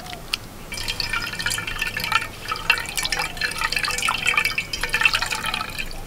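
Watermelon juice trickling and dripping into a steel bowl as the mashed pulp is squeezed by hand through a cotton cloth, a busy liquid patter that picks up a little under a second in.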